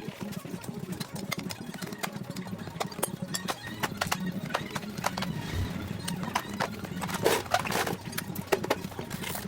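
Hand tools clicking and clinking against the metal parts of a moped being worked on: irregular sharp knocks and taps, with a few louder ones about seven seconds in, over a steady low hum.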